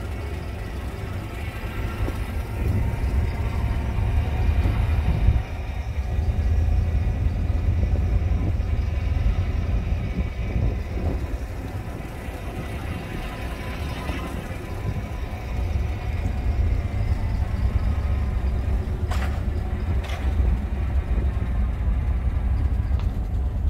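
A vehicle driving slowly along a street, a steady low rumble of engine and road noise, with two short knocks about a second apart near the end.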